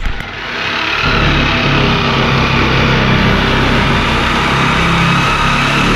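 Handheld power cutting tool running steadily as it cuts a slit through the truck's sheet-steel floor pan, building up over about the first second.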